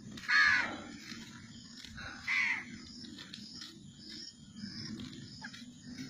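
Crows cawing in the trees: two loud caws about two seconds apart, followed by fainter, shorter calls.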